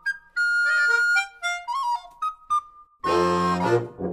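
Background music: a light melody of short single notes with pauses, then a fuller, deeper chord comes in about three seconds in.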